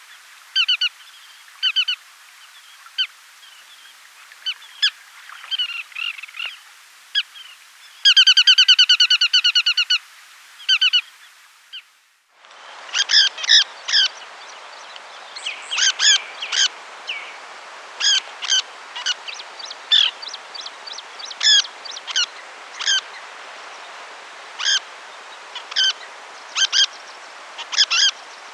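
Rainforest bird calls. For the first twelve seconds, loud repeated calls with a rapid run of them about eight seconds in. Then, after a brief break, a different ambience with many short bird chirps over a steady forest hiss.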